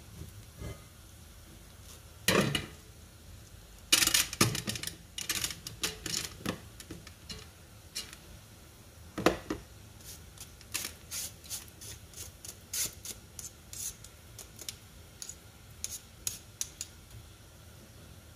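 Metal spoon scraping and tapping against a stainless mesh sieve while scooping soaked gấc-coloured glutinous rice into a steamer pot, in irregular short scrapes and clicks. A knock about two seconds in and a dense clatter a couple of seconds later are the loudest moments.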